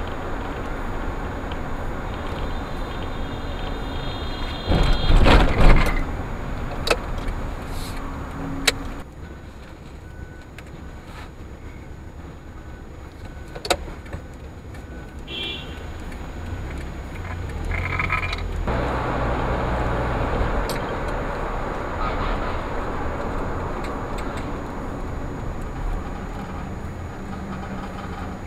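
Car driving in traffic, heard from a dash cam, with steady road and engine noise. A car horn sounds for about two seconds about three seconds in, then a loud burst follows.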